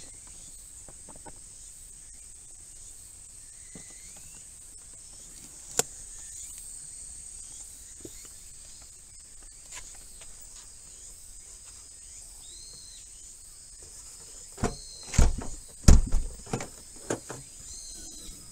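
Car's rear hatch being unlatched and swung open, heard as a quick cluster of knocks and thuds near the end, over a steady high insect trill.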